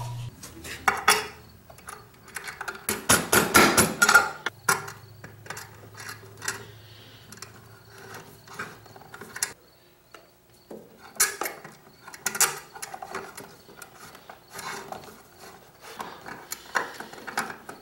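Scattered clicks, knocks and rustles of sheathed electrical cable being pushed through a clamp connector into a metal electrical box, with a screwdriver working the connector's clamp screw near the end.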